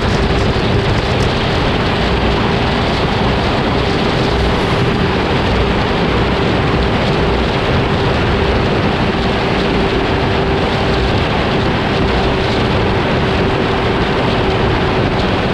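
Vehicle travelling at a steady speed: one constant engine note under a loud, even rushing noise, with no revving or gear changes.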